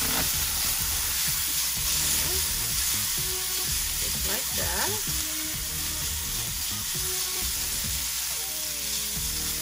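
Chopped ginger, onion and garlic sizzling steadily in hot oil in a stainless steel skillet, stirred with tongs that scrape against the pan.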